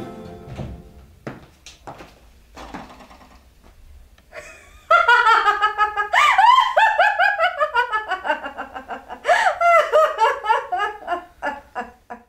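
A woman laughing loudly: a long laugh in quick ha-ha bursts that starts about five seconds in, slides down in pitch and dies away near the end. A few faint knocks come before it.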